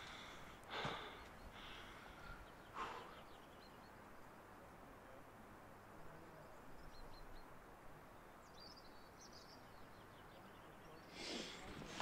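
Faint outdoor quiet with two heavy out-breaths from a hiker climbing a steep path in the first three seconds, and a few faint high chirps later on.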